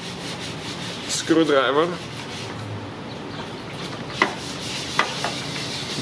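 A few sharp clicks of a screwdriver tip against a plastic under-hood fuse box as a blade fuse is pried out, over a steady hiss.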